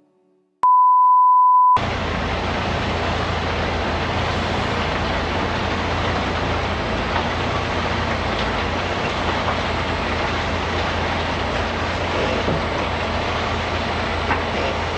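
A steady single-pitch beep lasting about a second, then the steady noise of a semi truck under way: the diesel engine's low hum under wind and road noise, heard from a camera mounted outside behind the cab.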